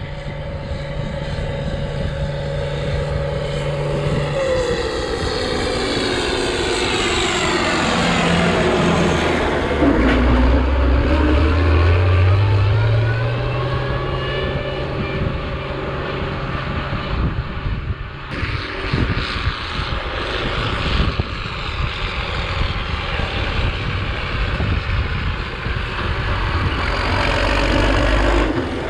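Heavy vehicle engine running under a steady rumble, its pitch falling as it slows and then climbing again as it speeds back up.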